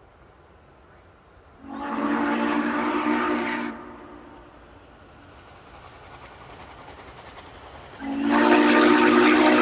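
Norfolk & Western 611 steam locomotive's chime whistle sounding two long blasts. The first lasts about two seconds; the second starts near the end and is still going. Between the blasts, the approaching train's running noise grows slowly louder.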